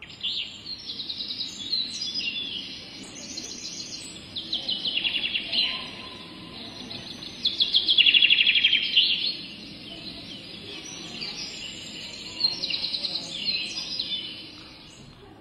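Birds chirping and trilling, with many quick high chirps and rapid trills one after another; the loudest trill comes about eight seconds in.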